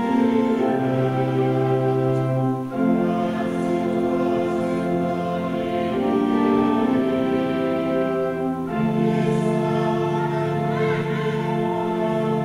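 Church choir and congregation singing in long held chords with organ accompaniment, the harmony changing every few seconds.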